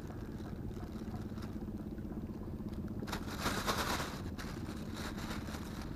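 A clear plastic bag rustling and crinkling as it is handled and tied shut, loudest about three seconds in, over a steady low engine hum.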